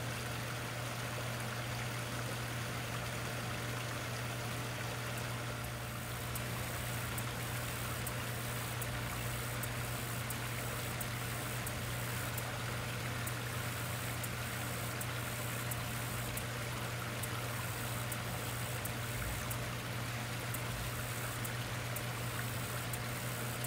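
Water spilling over the rocks of a small garden-pond waterfall, a steady rushing trickle, with a steady low hum underneath.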